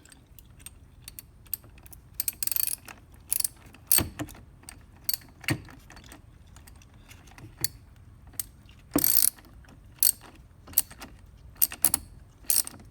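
Socket ratchet clicking in irregular short runs as a 10 mm battery terminal clamp nut is unscrewed, with a few brief metallic scrapes.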